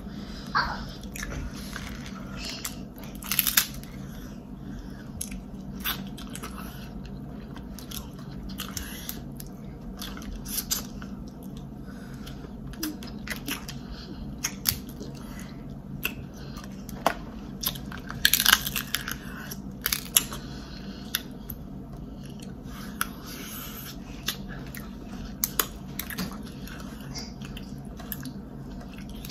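Close-miked chewing and biting of boiled seafood, with scattered sharp clicks, loudest about three and a half seconds in and again around eighteen seconds in, over a steady low hum.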